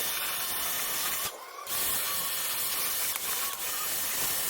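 Pressure washer running and spraying water in a steady hiss, with a brief break a little over a second in.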